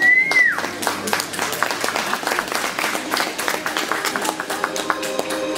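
Audience clapping, many quick irregular claps, with a high voice calling out at the start.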